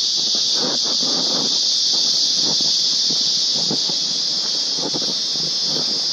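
A loud, steady, high-pitched drone of forest insects, with soft footsteps and rustling on the trail underneath.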